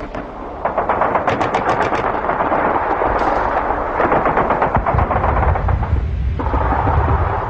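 Rapid automatic gunfire, machine-gun bursts at about ten shots a second, starting about a second in. A deep low rumble of explosions builds under it in the second half, as in a battle sound effect.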